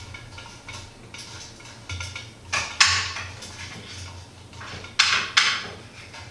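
Small metal hardware clinking and scraping as a nut and washer are fitted by hand onto a bracket screw, with several sharp clicks over a low steady hum.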